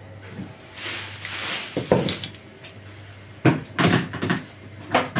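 A rustle about a second in, then several sharp knocks and clatters of a kitchen cupboard door being opened and shut, with one more knock near the end.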